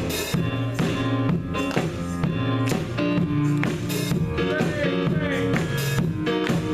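Gospel band music, with drum kit and guitar playing a steady beat.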